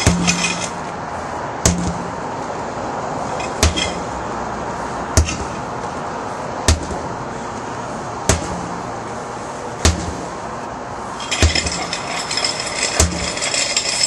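Sledgehammer strikes on a large tractor tire: about nine regular blows, one every second and a half or so, each a sharp thud. A rougher rustling hiss joins in the last few seconds.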